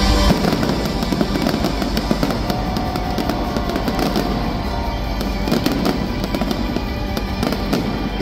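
Fireworks display: many bangs and crackles in quick succession, with music playing under them.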